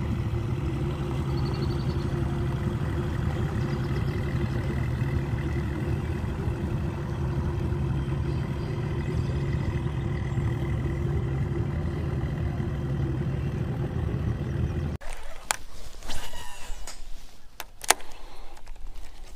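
Bass boat's outboard motor running steadily at low speed, which stops abruptly about 15 seconds in. A few sharp clicks and knocks follow as a baitcasting rod and reel is handled.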